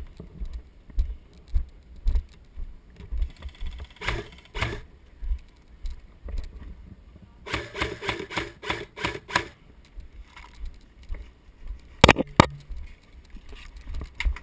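Gear rattling and jangling with uneven low thumps of movement. It is broken by a quick run of about eight sharp snaps about halfway through, and two loud sharp clacks near the end, which are the loudest sounds.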